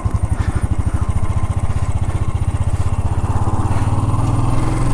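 Motorcycle engine running with a fast, even train of firing pulses as the bike rides off, heard from the rider's seat.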